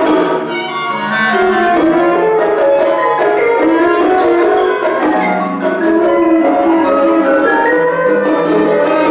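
Contemporary chamber ensemble playing: violin and cello with winds, and plucked or struck notes that fit the 25-string gayageum or percussion, many sustained pitched lines shifting together.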